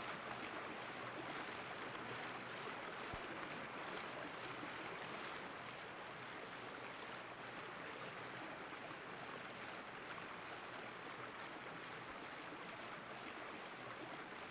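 Steady rush of a river's running water: an even, faint hiss with no distinct events.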